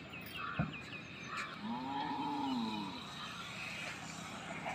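A cow mooing once: a single long call that rises and then falls in pitch, starting about one and a half seconds in. A few quick high bird chirps come near the start, with one sharp thump just before the moo.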